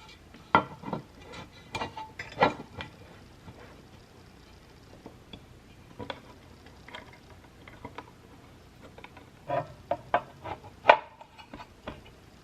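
Irregular clicks and clacks of hard plastic mechanical keyboard parts being handled and pressed, in two clusters, near the start and again near the end, where the loudest clack falls.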